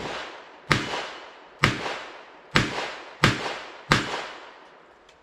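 Smith & Wesson Model 64 .38 Special revolver firing five shots in a steady string, about one a second, each a sharp crack with a trailing echo. The shots are 158-grain lead round-nose handloads.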